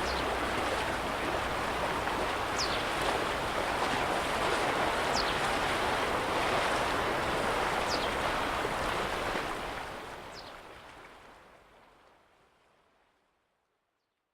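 Lake Wolfgang's small waves lapping at the shore, an even wash of water noise. A short high chirp repeats about every two and a half seconds. The sound fades out from about ten seconds in.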